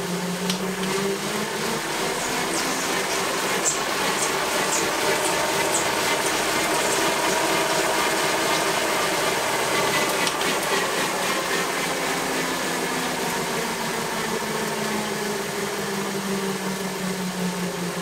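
Wahoo KICKR ROLLR smart trainer at a sprint, with the bike's rear tyre spinning on its rollers and the drivetrain running in a steady, loud whir. The whir rises in pitch as the wheel speeds up in the first few seconds, and falls back about halfway through as the rider eases off.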